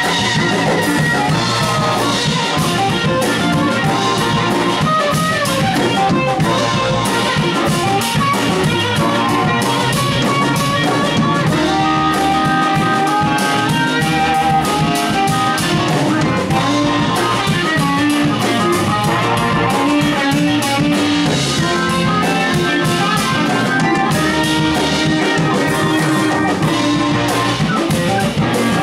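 Blues band playing an instrumental passage: guitar over a drum kit keeping a steady beat.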